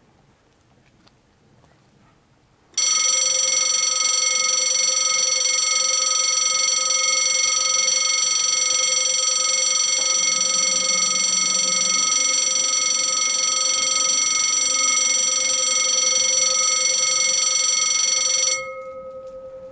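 Railway level crossing warning bell ringing steadily, warning of an approaching train. It starts suddenly about three seconds in and stops abruptly near the end, its low tone dying away after it stops.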